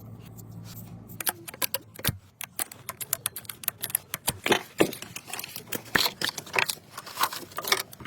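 Rapid, irregular clicking and light tapping, many sharp clicks in a row after a low hum fades out about a second in.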